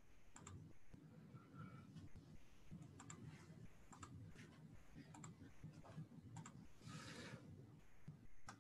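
Faint, scattered clicks of a computer mouse, about a dozen at irregular intervals, over a low steady background hum.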